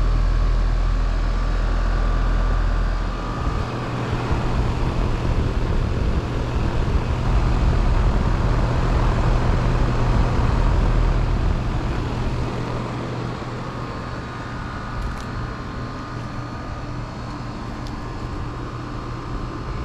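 Mainline (Rheem) central air conditioner condensing units running: a steady mechanical hum of outdoor fans and compressors, with a heavy low rumble that drops away about three seconds in.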